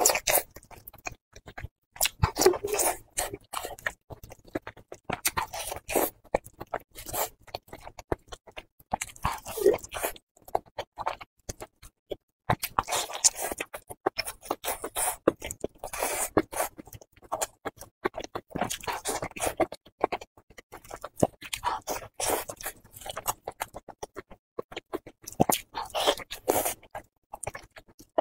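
Close-miked eating sounds of a person biting and chewing a chili-sauced braised pig's trotter, with irregular bursts of mouth clicks and chewing noise.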